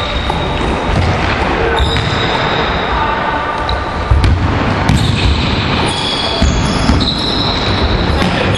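Basketballs bouncing on a hardwood gym floor during play, with short high sneaker squeaks, in a large echoing sports hall.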